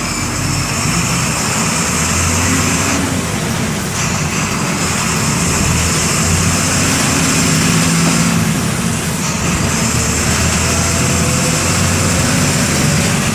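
MWM 6.12 TCE six-cylinder in-line turbodiesel of a Volksbus 17-230 EOD city bus running under way, its note rising and falling. A high hiss above the engine drops out briefly twice, about three and eight and a half seconds in.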